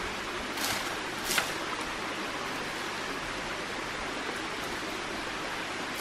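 Dry leaves and twigs rustling twice, briefly, about a second in, as undergrowth is handled, over a steady even hiss.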